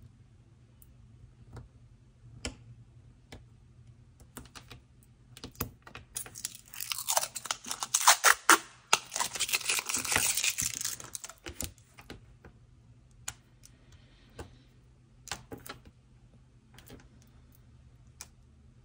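Blue protective plastic film being peeled off a metal nail stamping plate: a crackling rip lasting several seconds in the middle. Light clicks and taps of fingernails on the plates come before and after it.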